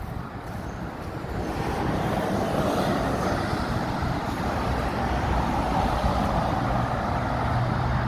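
Traffic on a busy main road: a steady rush of tyres and engines that swells about two seconds in, with a low steady hum joining near the end.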